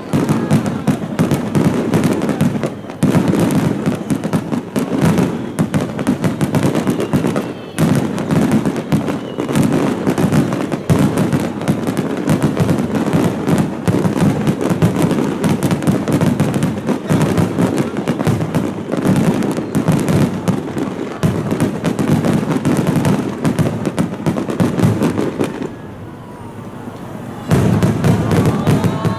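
A dense barrage of aerial firework shells bursting in quick, overlapping succession, almost without pause. The bursts ease off briefly about 26 seconds in, then pick up again near the end.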